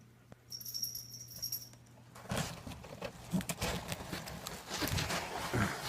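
Handling noise: a cardboard box and the box fan in it being moved about, with irregular knocks, scrapes and rustling that start about two seconds in.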